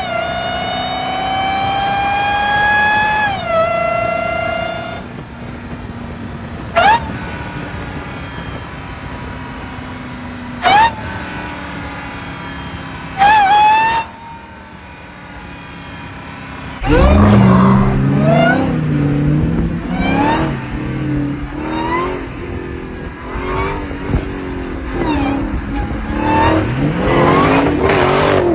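Supercharged Hellcat V8 accelerating hard: a rising supercharger whine that drops sharply at an upshift about three seconds in. Three short sharp blips follow, and from about seventeen seconds on a louder, rougher stretch of sound.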